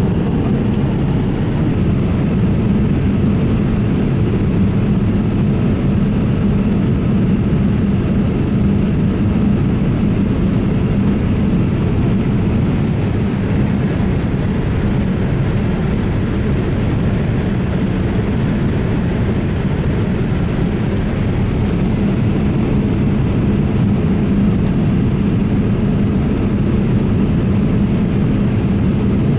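Steady cabin noise of a Boeing 787-9 in cruise, heard from an economy seat inside the cabin: a constant low rush of airflow and engine noise with no change in level. A couple of faint clicks come about a second in.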